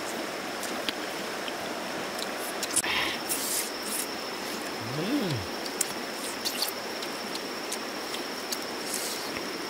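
Steady rush of a shallow rocky stream, with a thin steady high tone above it and a few small clicks.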